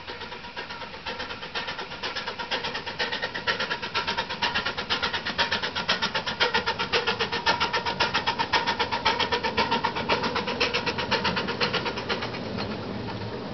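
Miniature 7¼-inch gauge steam locomotive working past with a train, its exhaust chuffing in a rapid, even rhythm. The beats grow louder as it approaches and fade near the end as it draws away.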